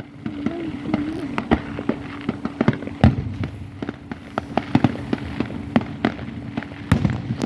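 Fireworks going off: many sharp bangs and crackles at an irregular pace, the strongest about three seconds in and again near the end, over a steady hum.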